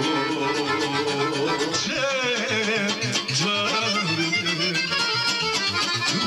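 Live folk music: an accordion over a steady beat, with a man singing into a microphone from about two seconds in, his voice wavering in vibrato.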